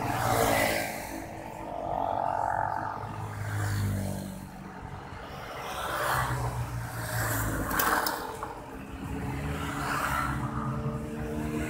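Road traffic at a junction: motorbike engines idling close by while cars and motorbikes pass across in front, the sound swelling and fading several times.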